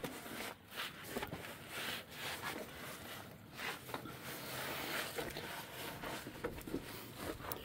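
Irregular rustling and scuffing of a camera being handled and shifted about over cardboard and wood-chip ground, in scattered bursts with no steady sound.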